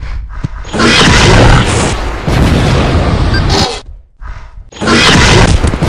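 Animated sound effect of the ground cracking open: loud booming crashes and rumbling in long noisy stretches, with a short lull just before a final crash near the end.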